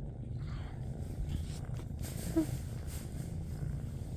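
Kitten purring close to the microphone, a steady low rumble, with one short higher-pitched sound about two and a half seconds in.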